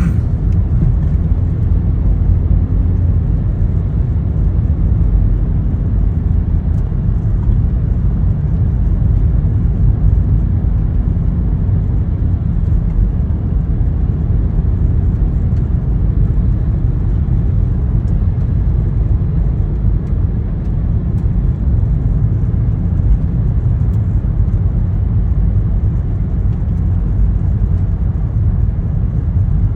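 Front-wheel-drive car driving, a steady low rumble of engine and tyres with no change in pace.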